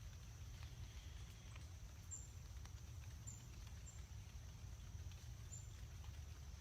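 Faint scattered ticks of rainwater dripping from tree leaves, over a steady low rumble and a steady high tone, with a few short high chirps.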